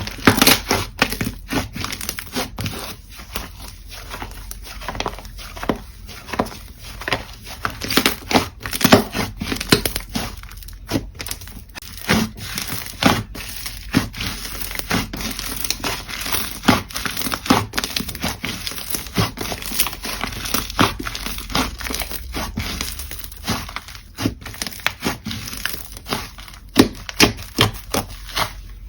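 Slime being squeezed and worked by hand, giving an irregular run of sticky crackles and pops.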